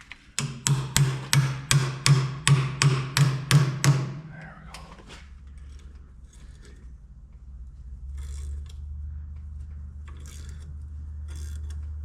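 A hammer striking a two-jaw puller set on a tractor crankshaft pulley: about ten sharp metal blows, roughly three a second, each with a short ring. Then come lighter clicks and scrapes of the tool being handled over a low steady hum, which grows louder about eight seconds in.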